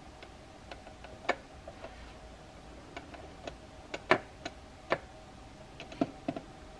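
Irregular light clicks and taps of a plastic scale-model truck cab being handled, with fingers pressing its parts together. The loudest clicks come about four and five seconds in, with a few more near the end, over a faint steady hum.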